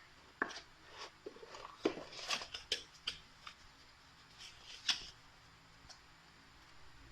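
A smartphone retail box being opened and handled: short scrapes, taps and packaging rustles, bunched in the first five seconds, then it goes quiet.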